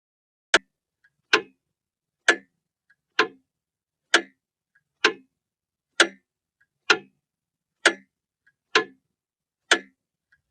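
Clock ticking: sharp ticks a little faster than one a second, evenly spaced, with a much fainter click in every other gap between them.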